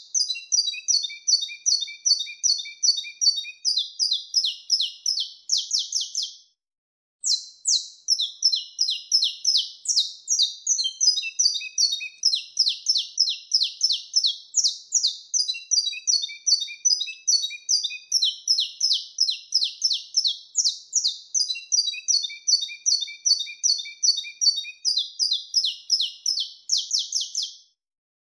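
Saffron finch (canário-da-terra) singing its 'mateiro' song type: a long run of quick, high chirping notes at about three a second, broken by a silence of about a second some six seconds in.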